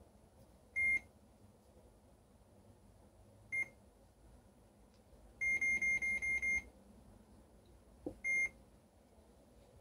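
Electronic chess board's beeper sounding short, identical high beeps: one about a second in, a brief one at about three and a half seconds, then a quick run of six beeps near the middle. Just after eight seconds a chess piece is set down on the wooden board with a light knock, and the board answers with one more beep.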